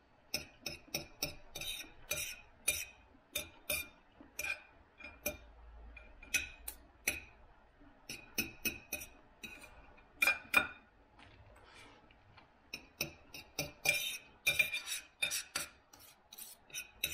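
Knife and fork scraping and clicking against a dinner plate, in a run of short, irregular clicks and scrapes.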